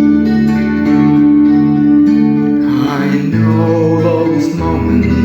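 Instrumental break in a slow song: guitar chords over held bass notes. About halfway through, a wavering lead line comes in above them.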